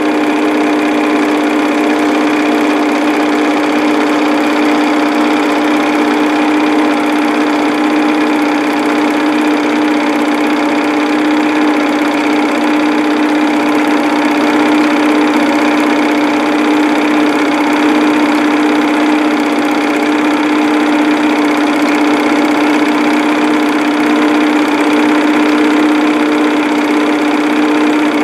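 Home-movie film projector running: a steady motor hum and whir from the film transport, unchanged throughout.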